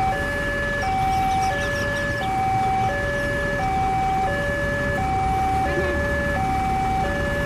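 Railway level-crossing warning alarm sounding: two electronic tones alternate high and low, each held for about two-thirds of a second, warning that a train is approaching as the barriers come down.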